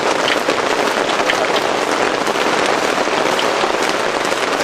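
Rain falling: a steady, dense patter with scattered sharper drop ticks.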